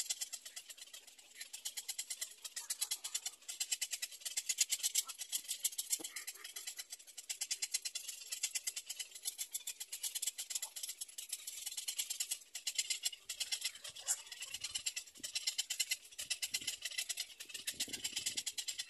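Black-crowned night heron nestlings calling in a fast, continuous, high-pitched chatter.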